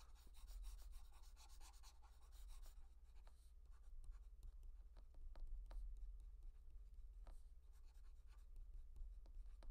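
Faint scratching and light tapping of a pen stylus drawing short strokes on a graphics tablet, over a steady low hum.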